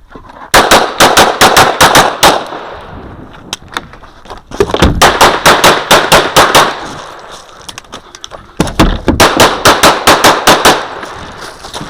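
Glock 35 pistol in .40 S&W fired in rapid strings during a USPSA stage run: three bursts of about ten shots each, separated by pauses of about two seconds.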